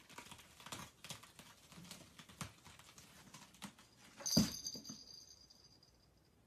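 Faint clicks and rustles of pets moving about, then a soft thump about four seconds in with a faint high tone trailing after it.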